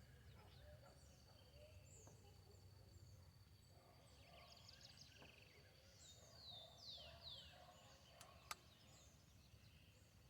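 Faint outdoor ambience with distant birds chirping, including a few quick downward-sweeping calls past the middle, over a faint steady high tone and low background hiss. A single short click comes near the end.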